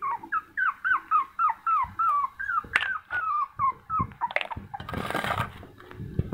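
A young puppy whimpering: a quick run of short, high, falling whines, about four a second, that stops about four seconds in. A short scraping noise follows about five seconds in.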